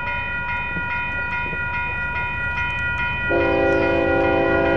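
Railroad grade-crossing warning bell ringing in rapid, even strokes. About three and a half seconds in, a locomotive's multi-chime air horn starts sounding a chord of several tones together.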